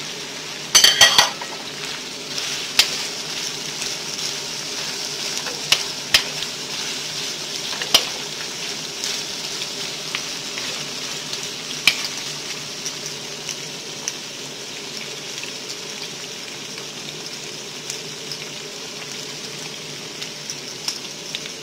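Chicken, carrot and bell pepper strips sizzling steadily in a hot frying pan as they are stir-fried, with a wooden spatula clicking and scraping against the pan now and then. A louder clatter comes about a second in.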